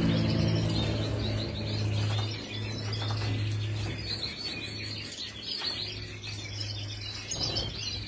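European goldfinches twittering, with many quick high chirps, over a steady low hum.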